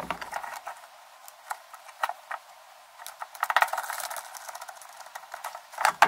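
Scattered light clicks and taps of hard plastic as a cigarette lighter socket and its rubber seal are pressed into a hole in a plastic ammo box. The clicks come thickest around the middle, with a louder knock just before the end.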